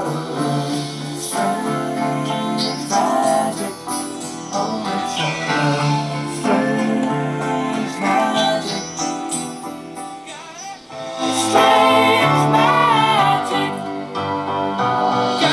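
Music with guitar and singing, played through a repaired Sherwood RX-5502 stereo receiver and a bookshelf speaker as a listening test of the amplifier.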